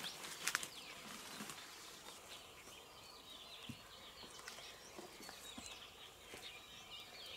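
Faint outdoor ambience: footsteps and brush rustling as a person walks through scrub, with scattered faint bird chirps.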